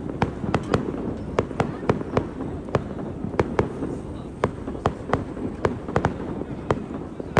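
Aerial fireworks firing in a rapid volley: sharp bangs about three a second, unevenly spaced, over a steady low rumble.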